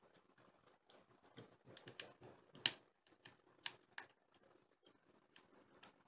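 Faint, irregular clicks and ticks of a screwdriver working small Phillips screws loose in a laptop's hard-drive bay, the sharpest click about two and a half seconds in.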